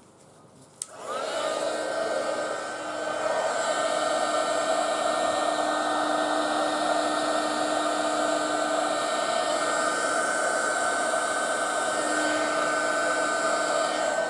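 Heat gun switched on with a click about a second in, then running steadily, its fan blowing hot air across wet epoxy resin to push the pigments around.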